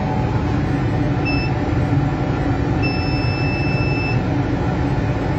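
CO2 laser cutting machine running steadily with its fans and pump on. Two electronic beeps sound over the hum: a short one about a second in, then a longer one of about a second and a half near the middle.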